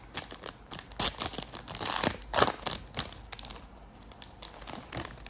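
Foil wrapper of a sports trading-card pack crinkling and tearing as it is ripped open, busiest in the first three seconds, then lighter rustling.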